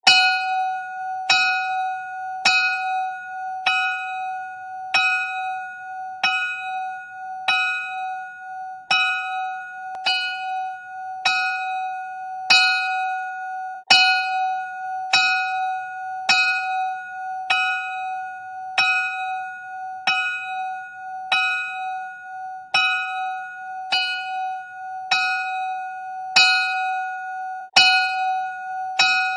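Old schoolhouse rooftop bell ringing in a slow, steady rhythm, struck a little over once a second, each stroke ringing on into the next.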